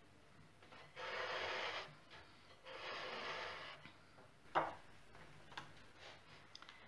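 Powdered sugar being shaken through a metal mesh sieve. There are two bursts of fine rattling rasp, about a second each, then a single sharp click about halfway through and a few light clicks near the end.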